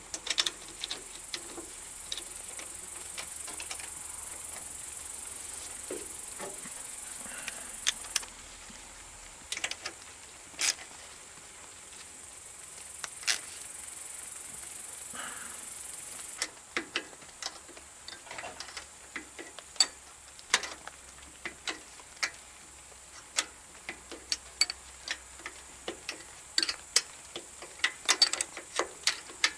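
A socket ratchet wrench clicking and metal tools clinking while the starter motor's mounting bolts are worked on a Briggs & Stratton 10 HP engine. The clicks come in short, irregular runs that grow busier toward the end, over a faint hiss that stops about halfway through.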